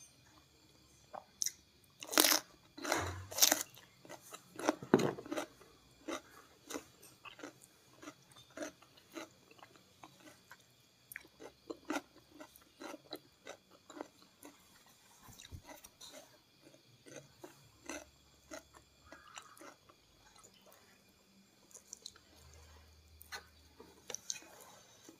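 Close-up eating sounds: a few loud crunchy bites into raw vegetable in the first five seconds, then steady chewing with small wet mouth clicks about twice a second.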